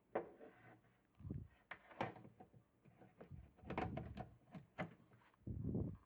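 Irregular clicks, knocks and a few short dull thumps of parts and tools being handled on a workbench, with no motor running.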